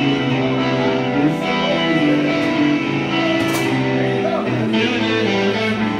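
Guitar music, held chords that change every second or so.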